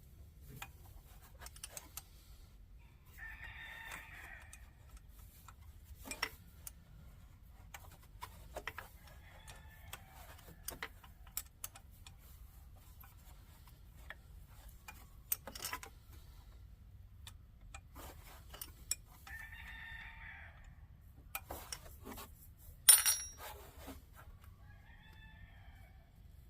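A rooster crowing twice, with fainter chicken calls between, over scattered clicks of hand tools on metal. A single sharp metallic clank near the end is the loudest sound.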